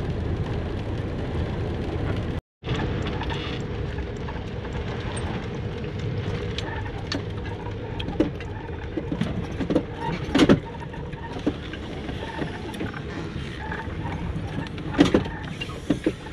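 Steady engine and tyre noise heard inside a van's cab while driving. Scattered light clicks and a few louder knocks come in the second half.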